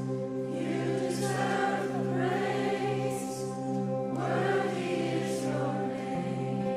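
A church congregation singing a worship song in unison with the band, held organ- or keyboard-like chords sustained underneath, the voices swelling phrase by phrase.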